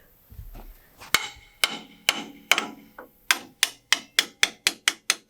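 Hammer blows on metal with a ringing clang, struck on a pipe wrench gripping a backhoe's hydraulic cylinder to try to break it loose. About a dozen strikes, slow at first, then quickening to about four a second from about three seconds in.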